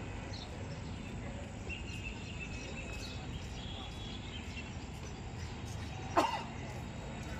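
Steady low outdoor background noise, with a dog barking once, sharply, about six seconds in.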